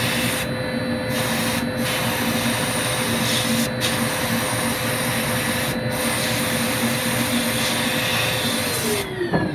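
Sandblasting gun in a blast cabinet blasting abrasive onto rusty sheet steel: a steady hiss over a constant motor hum, with a few short dips. Near the end the hum winds down in pitch and the blasting cuts off as the circuit breaker trips.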